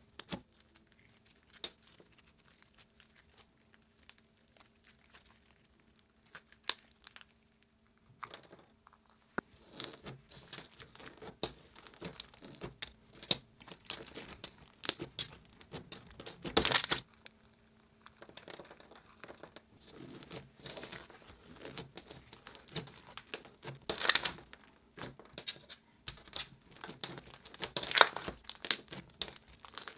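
Glossy slime packed with foam pieces being squished and kneaded by hand, giving wet crackling and popping. The crackles are sparse for the first several seconds, then turn dense, with a few louder pops.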